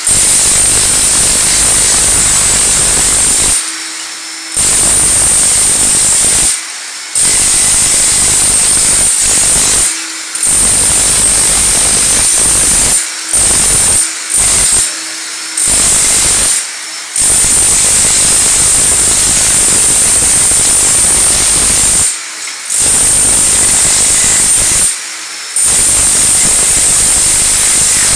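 Power hammer with a vacuum dust shroud breaking up ceramic floor tile and thinset. It runs loud and steady in long stretches, stopping briefly about nine times, and a lower hum carries on through the pauses.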